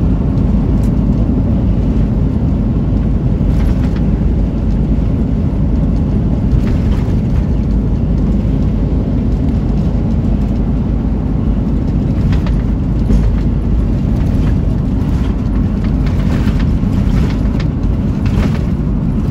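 Steady low rumble of a vehicle cruising at highway speed: road and wind noise heard from inside the cab.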